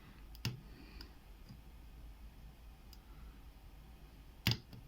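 Small metallic clicks of a tension tool and pick working in the keyway of a Castle 440 padlock: a few scattered light ticks, with a sharper click about half a second in and the loudest near the end.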